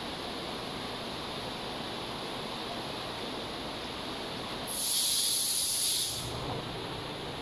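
Steady rushing noise of aquarium water circulation. About five seconds in, a loud hiss sets in and cuts off after a second and a half.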